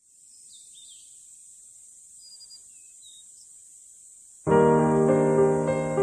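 Background piano music that starts abruptly about four and a half seconds in. Before it there is only a faint steady high hiss with a few faint chirps.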